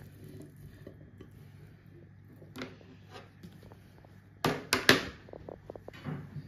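Kitchen handling sounds: a single click, then a few loud, sharp clacks and knocks about four and a half seconds in, followed by softer ticks and rustling, over a faint steady hum.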